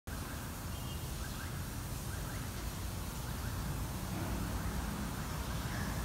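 Steady outdoor background hiss with a low rumble, and a few faint short bird chirps between about one and two and a half seconds in.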